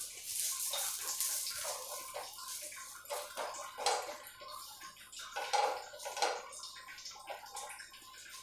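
Oiled paratha frying on a hot nonstick tawa, giving a steady sizzle. Over it, a slotted spatula presses and scrapes against the bread and pan several times at irregular intervals.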